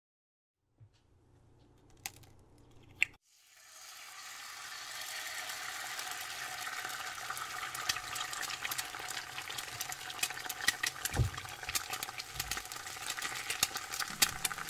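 Pancakes frying in a hot pan: a couple of sharp clicks, then from about four seconds in a steady sizzle full of small crackling pops, slowly growing louder.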